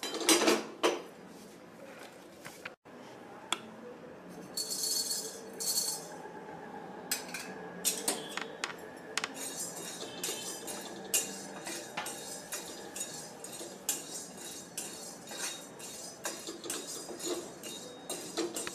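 Whole spices being dry-roasted in a small steel kadai and stirred with a spatula: irregular clicks and scrapes of the spatula on the pan, with the spices rattling over the metal. A cluster of louder knocks comes in the first second, and a short hissy rattle about five seconds in.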